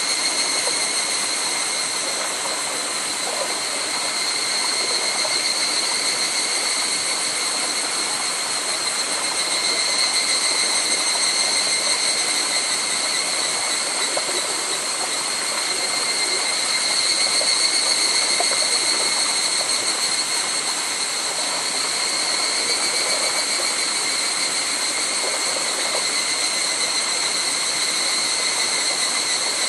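Chorus of higurashi (evening cicadas, Tanna japonensis) calling together, a steady overlapping high ringing, over the even rush of a small forest stream and waterfall.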